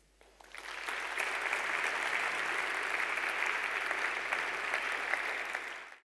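Audience applauding: the clapping swells over the first second into a steady wash of many hands, then cuts off suddenly at the end.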